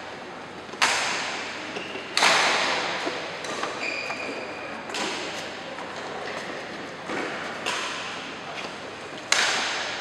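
Badminton rackets striking shuttlecocks: sharp, echoing hits every second or two, each ringing out in the large hall, the loudest about a second in, about two seconds in and near the end.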